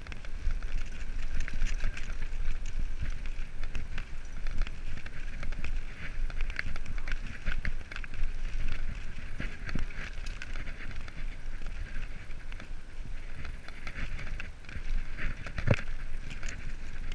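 Mountain bike ridden fast over a dirt and grass track: wind buffets the microphone with a steady low rumble, while the bike clatters with many short clicks and rattles over the bumps.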